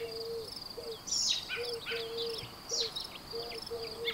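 Birds chirping in short quick calls, loudest about a second in, over an insect's steady high-pitched trill.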